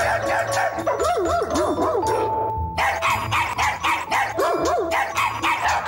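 Dog voices, barks and howl-like notes, made to sing a festive tune over a music track with a steady beat. Their pitch wavers up and down, and there is a short held note with a break in the beat about two seconds in.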